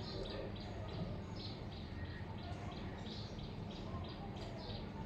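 A bird chirping repeatedly, short high chirps about three a second, over a faint low steady hum.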